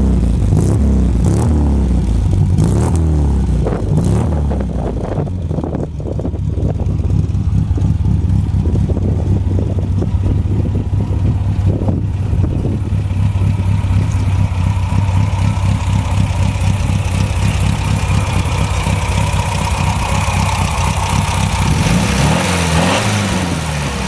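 1965 MGB's 1.8-litre four-cylinder engine running at idle, heard at the exhaust, with brief throttle blips that rise and fall in pitch near the start and again near the end.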